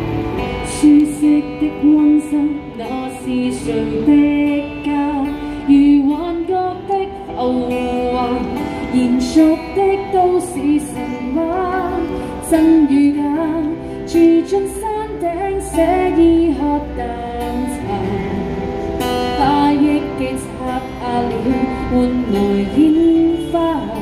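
A woman singing a pop ballad to her own strummed acoustic guitar, both amplified through microphone and a small street amplifier.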